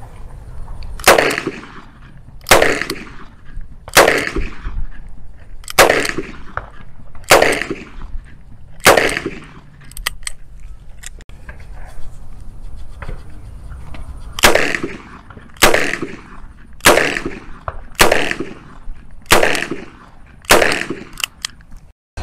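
Smith & Wesson Model 10 .38 Special revolver fired single shots in two strings of six, each a full cylinder. The first string comes about a second and a half apart, the second a little faster, after a pause of about five seconds. Each shot carries a short echo.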